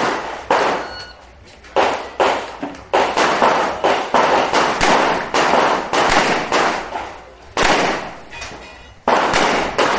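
Revolver gunshots fired in rapid strings during a timed IDPA stage run, with short pauses between strings. Each shot cracks sharply and leaves a short ringing echo.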